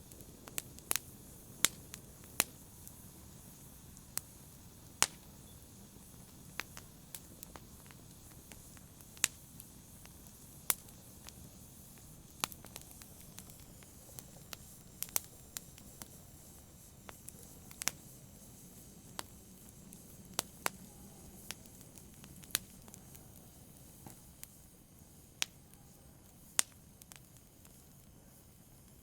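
Wood fire crackling: sharp, irregular pops and snaps over a soft, steady low rumble of the burning fire.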